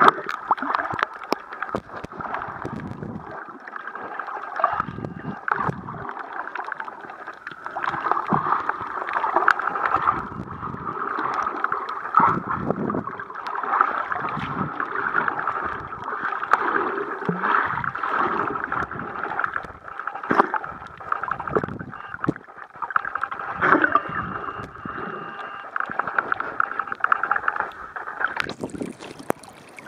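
Muffled underwater noise from seawater moving around a camera held under the surface: a gurgling, swelling wash full of fine crackles, turning to a brighter hiss near the end.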